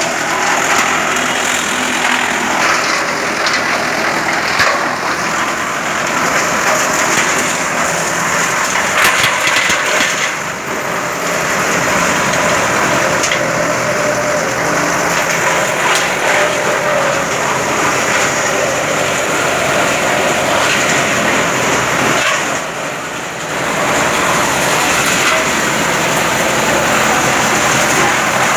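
Wood chipper machine running with a loud, steady mechanical din and scattered sharp cracks. The noise dips briefly twice.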